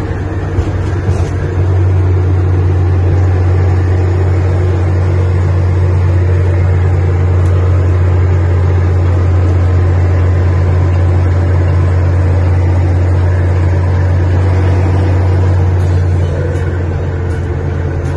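Scania 112 truck's six-cylinder diesel engine pulling steadily at highway cruise, heard from inside the cab as a steady low drone with road noise. The drone grows a little louder after about a second and a half and eases back near the end.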